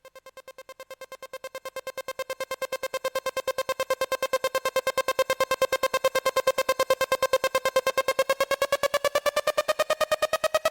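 Electronic intro music: a single rapidly pulsing synthesizer note that fades in from silence and slides upward in pitch near the end.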